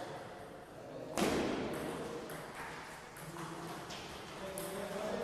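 Table tennis rally: the celluloid-type ball is struck by the bats and bounces on the table, making a string of sharp clicks a fraction of a second apart, the loudest about a second in.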